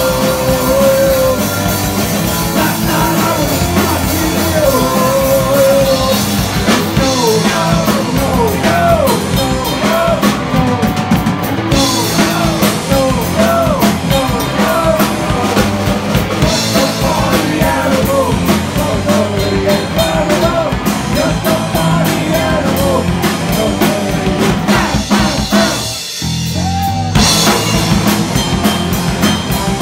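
Live punk rock band playing: electric guitars, bass guitar and drum kit, with a lead singer's voice over them. A little before the end the band stops briefly, then comes back in.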